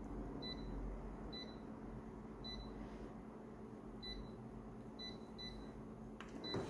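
Photocopier touch-panel key beeps: about seven short, identical high beeps at uneven intervals as on-screen settings are pressed, then a click near the end.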